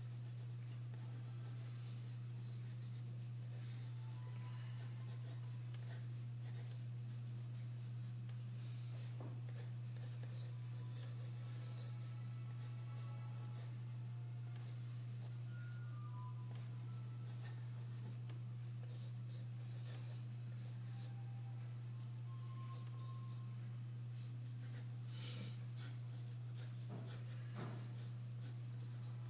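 Pencil scratching on paper in irregular sketching strokes, faint, over a steady low hum.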